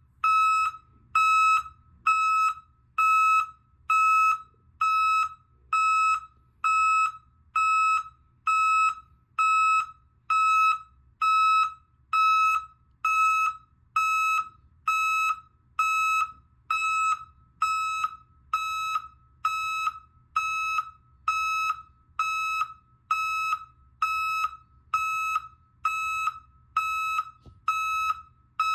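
PICO tonal backup alarm, a vehicle reversing alarm, sounding its warning: one steady beep tone with overtones, repeating about once a second, each beep lasting just over half a second.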